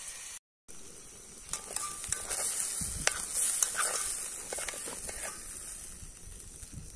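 Raw rice sizzling as it fries in hot oil with toasted garlic in a pot over a wood fire, with the scrape and tick of a utensil stirring it against the pot. The sound cuts out for about half a second near the start.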